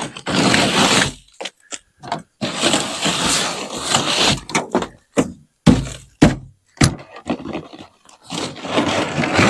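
Sun-softened ice being broken and scraped off a pickup truck with a broom, in several rough scraping stretches with pauses between. Three sharp knocks come a little past halfway.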